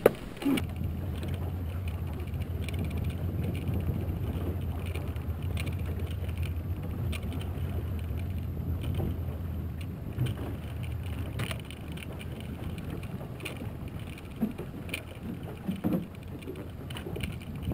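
Small outboard motor running at trolling speed as a steady low hum, which fades about ten seconds in, over water and wind noise around a small aluminium boat. Scattered knocks and clicks of fishing gear being handled.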